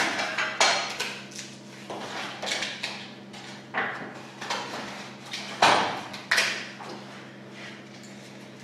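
Cardboard and a metal sweet tin being handled on a table: irregular rustles, scrapes and knocks, the sharpest pair a little past the middle. A faint steady hum runs underneath.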